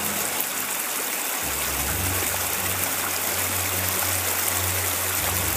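A small rocky creek rushing and splashing over stones in a steady flow, with a low rumble joining in about a second and a half in.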